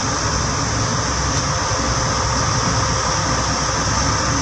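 Steady in-cabin road and engine noise of a manual car cruising at about 90 km/h in sixth gear under light, steady throttle.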